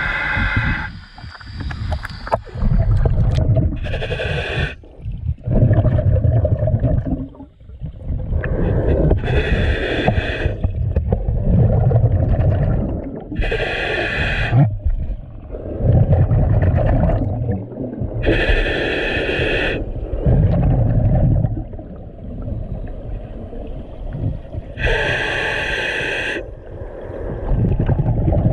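Scuba regulator breathing heard underwater: a rush of exhaled bubbles about every four to five seconds, five in all, with low rumbling between the breaths.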